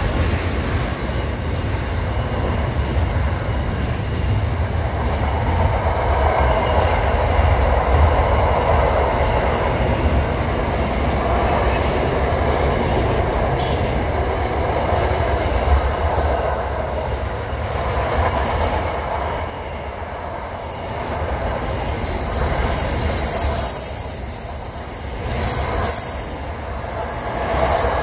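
Container freight train wagons rolling past close by, a continuous deep rumble and rattle of steel wheels on rail. Thin high-pitched wheel squeal rises over it in the later part.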